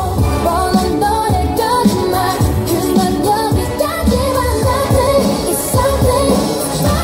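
Upbeat pop song with a female singing voice over a steady beat of about two drum strokes a second, played as a recorded track for a dance routine.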